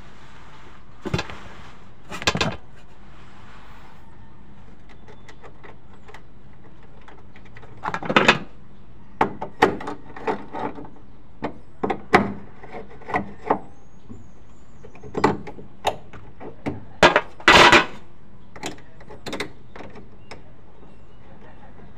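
Hand tools and metal parts knocking and clinking as they are worked by hand: two short knocks near the start, then a string of irregular sharp clicks and knocks from about eight seconds in until shortly before the end, over a steady low hiss.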